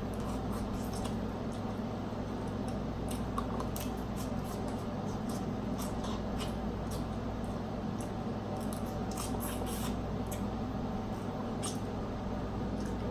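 Close-up eating sounds of a seafood boil: chewing and mouth noises with many scattered sharp little clicks, over a steady low hum.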